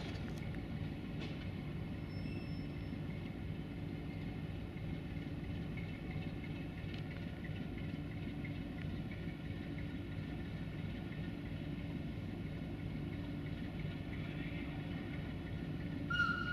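Sulzer diesel engine of a CFR 060-DA (LDE2100) diesel-electric locomotive running steadily during shunting, a constant low hum. A high steady tone starts right at the very end.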